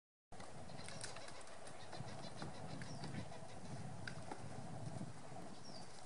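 Magellanic woodpecker pecking at a branch while foraging: a run of light, irregular taps, thickest in the first half, over a steady low background rumble.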